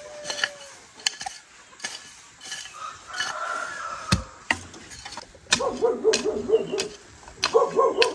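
Animal calls: a quick run of short calls starting past the middle, over scattered clicks and knocks.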